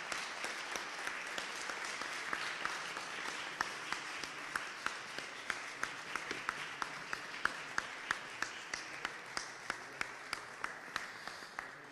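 Audience applauding steadily, with individual claps close by standing out sharply over the general clapping; the applause slowly fades away toward the end.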